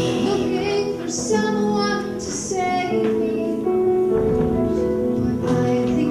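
Children and a woman singing a slow song together with piano accompaniment, the voices holding long notes.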